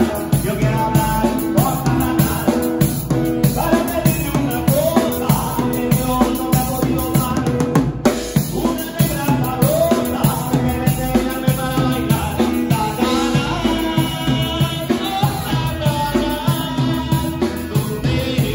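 Live band music: a drum kit keeps a steady beat under a melody on a wind instrument, with acoustic guitar. The music breaks off for a moment about eight seconds in.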